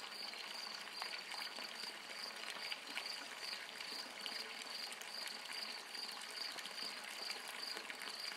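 Steady sound of running, trickling water, with a high chirp pulsing evenly about two or three times a second over it.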